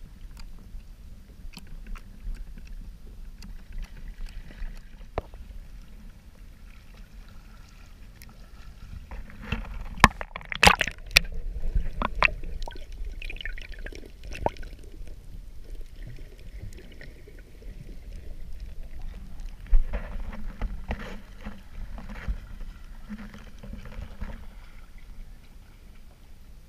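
Seawater sloshing and splashing around a camera at the surface and just under it, over a steady low rumble; a cluster of louder splashes and knocks comes about ten seconds in.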